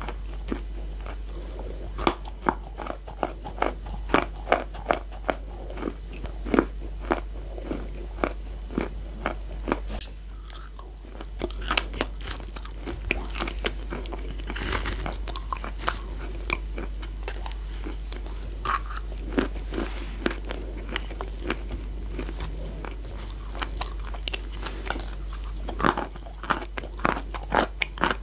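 Close-miked crunching and chewing as a person bites into and eats chunks of chalk, crisp crunches coming a few times a second. The crunches ease off briefly about ten seconds in, then come back louder near the end.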